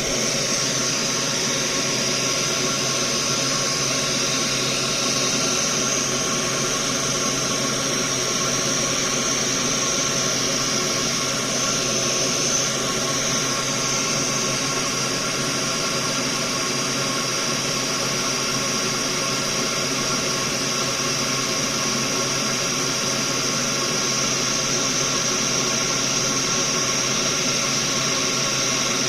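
Soldering fume extractor fan running steadily, a little bit loud: an even rush of air with a few steady hum tones from the fan motor.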